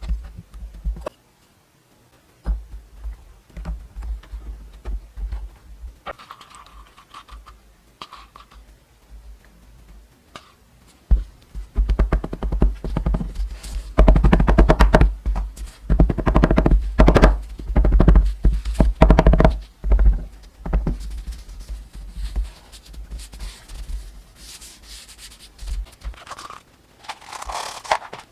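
Close-range scratching and knocking of objects being handled, with low bumps. Busiest and loudest in a long stretch through the middle.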